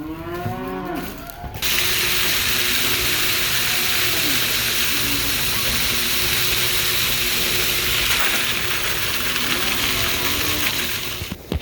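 Feed grain pouring out of a bulk bin into a bucket in a steady loud rush, starting about a second and a half in and cutting off abruptly near the end.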